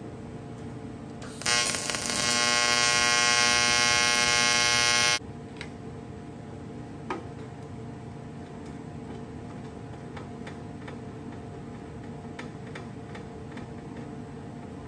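AC TIG welding arc on aluminum buzzing steadily for nearly four seconds, a tack weld on a gas tank panel. It starts about a second and a half in and cuts off abruptly. Before and after it there is a low steady electrical hum, with a single click near the middle.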